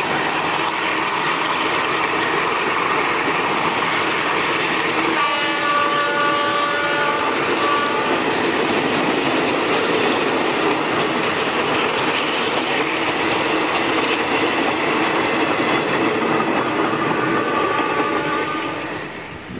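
Passenger coaches of a State Railway of Thailand train rolling past close by, wheels running over the rails in a steady loud rumble. A steady pitched tone sounds for about three seconds around five seconds in and again faintly near the end. The noise fades as the last coach passes.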